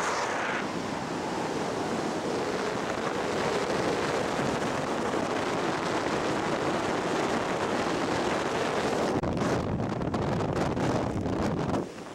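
Wind rushing steadily over a skydiver's camera microphone, flickering in the last few seconds.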